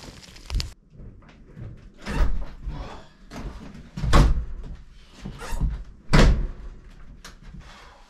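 Heavy thumps and knocks inside a small wooden cabin, the three loudest about two seconds apart, with rustling in between: a cabin door and boots on a plank floor as a man comes in from the cold and takes off his coat.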